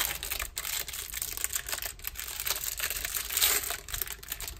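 Clear plastic wrapper crinkling and crackling as it is peeled off a stack of trading cards, with a louder crackle about three and a half seconds in.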